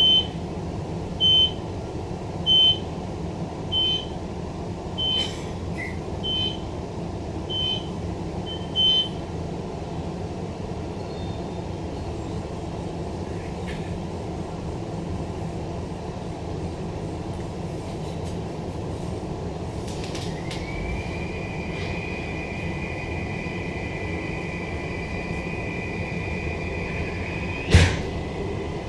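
Cabin of a Queensland Rail NGR electric multiple unit: a high electronic beep repeats about every 1.3 seconds for the first nine seconds over a steady low rumble. About twenty seconds in, a high electric traction whine rises and then holds a steady tone as the train pulls away. A sharp knock sounds near the end.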